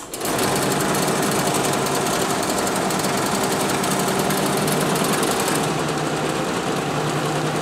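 IBM 082 punched-card sorter starting up and sorting a deck: a sudden start into a loud, fast, steady mechanical clatter of cards feeding through and dropping into the pockets, over a steady motor hum. The clatter thins about three quarters of the way through while the machine keeps running.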